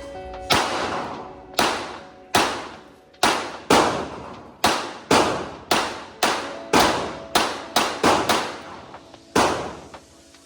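Taurus TX22 semi-automatic pistol firing a string of about fifteen .22 LR shots at an uneven pace, roughly one to two a second, each shot ringing out with a reverberant tail.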